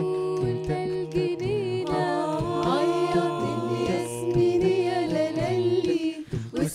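A cappella group of women and men singing an Egyptian folk song from the Canal cities in harmony, with no instruments. Low voices hold steady notes while a woman's voice carries the gliding melody above them.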